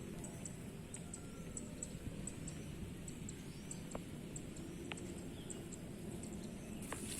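Short, very high chirps repeating about twice a second from a small animal, over a steady low rumble, with a few single clicks.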